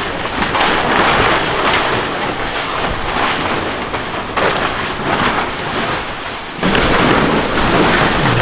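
Loud rushing noise that swells and eases in waves, stepping up suddenly about six and a half seconds in.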